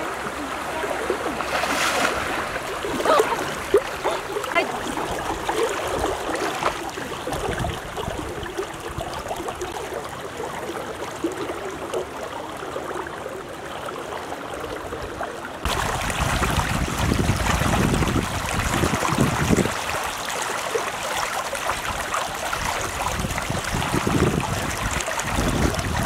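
Flowing floodwater, rushing and sloshing, with splashes of people wading through it in the first few seconds. Partway through the sound changes abruptly, and low gusts of wind rumble on the microphone over the water.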